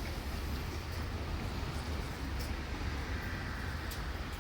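Diesel railcar running, a steady low rumble with a few faint clicks.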